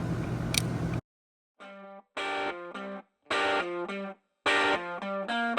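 About a second of steady hum with faint clicks, cut off abruptly, then background music: guitar phrases with effects, starting and stopping with short silences between them.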